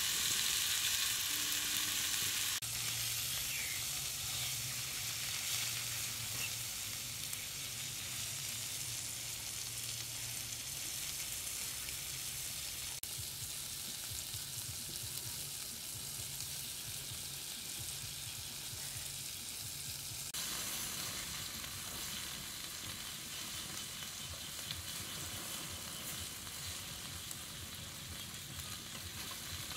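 Chicken legs sizzling on hot stone slabs: a steady, dense sizzle whose character shifts abruptly a few times.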